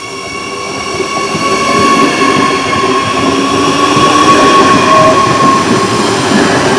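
Adelaide Metro 4000-class electric multiple unit passing close by, its wheels rumbling on the rails under a steady high whine, growing louder as the cars go past.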